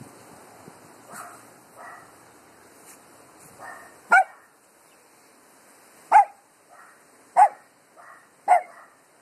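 Small dogs barking at the wind in short, sharp, high barks: a few soft ones, then four loud barks spaced about a second apart in the second half.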